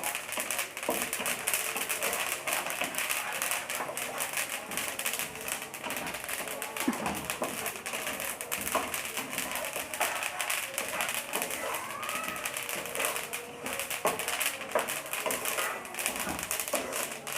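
Flaxseeds dry-roasting in a hot pan, crackling and popping steadily: the crackle that marks the seeds as roasted.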